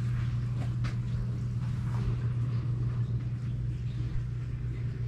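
A steady low hum, with a few faint clicks over it.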